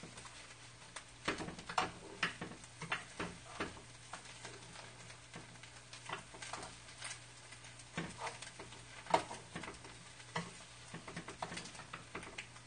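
Chopsticks tapping and scraping against a frying pan as crab-stick pancakes are turned, in irregular clicks over a faint sizzle of frying, with a steady low hum underneath.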